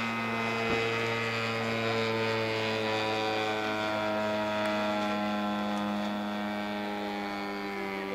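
Engine and propeller of a radio-controlled Pitts Special biplane model droning steadily in flight overhead, the pitch drifting slightly down and the sound fading a little near the end.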